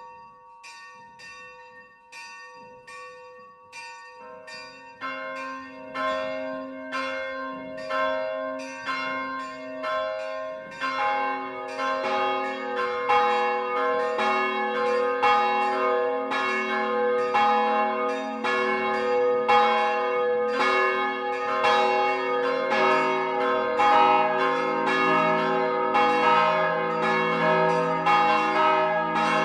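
Swinging bronze church bells of a four-bell tower (tuned B, C, G-sharp and D-sharp, from 45 kg up to 1,100 kg) ringing a peal. A single bell starts it, and more bells join one after another, at about four to five seconds and again near eleven seconds. The deepest bell joins about twenty-two seconds in, and the peal grows steadily louder into a full, overlapping clangour.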